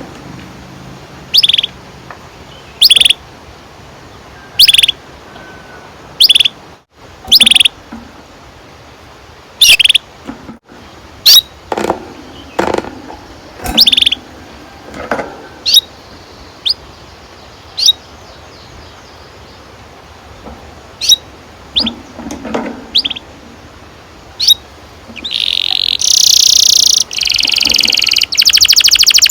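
Domestic canary calling in short, separate high chirps every second or two, then about 25 seconds in breaking into a loud, long, rapid rolling trill.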